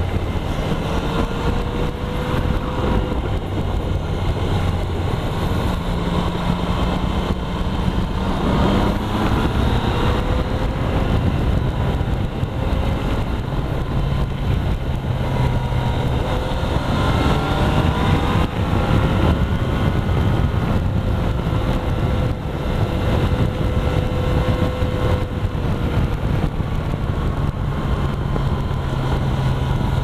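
Motorcycle engine running at road speed, its pitch slowly rising and falling with the throttle through the bends, over a steady rush of noise.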